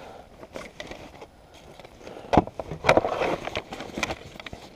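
Handling noises as a fabric bag and a loose white plastic part are moved about by hand: scattered clicks and rustles, with two sharp knocks about two and a half and three seconds in, the loudest sounds.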